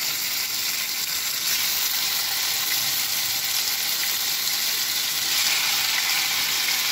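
Marinated chicken pieces sizzling steadily as they fry in hot oil in a kadhai, the sizzle growing a little louder about five seconds in.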